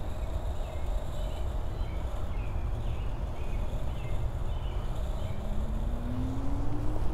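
Steady low outdoor rumble with birds chirping several times in the middle. Over the last two seconds a low hum rises steadily in pitch.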